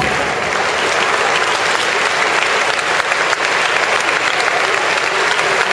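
Audience applauding steadily at the end of a dance, the clapping of many hands.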